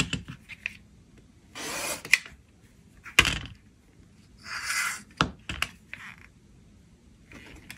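Rotary cutter rolled along an acrylic quilting ruler, slicing fabric on a cutting mat: two short scraping strokes, with sharp taps and clicks as the ruler and cutter are set down and picked up.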